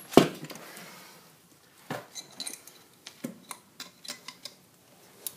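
Metal hand tool clinking and clicking on the steel mounting strap (belly band) and bolt of an ECM blower motor as the strap is loosened: a sharp knock just after the start, then a run of small clicks.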